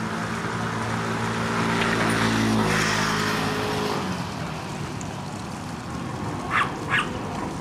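An engine running with a steady hum, swelling to its loudest about two to three seconds in and fading away soon after, like a motor vehicle or boat passing by. Near the end come two short, sharp, high sounds.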